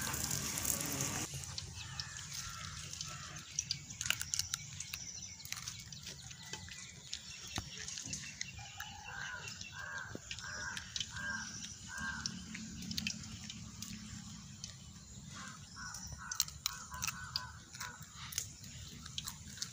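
Water poured from a steel pot splashes over a cucumber for about the first second, then stops. After that, a bird calls in two short runs of repeated notes, about two a second, over outdoor quiet, with scattered crisp crunches of a raw cucumber being bitten and chewed.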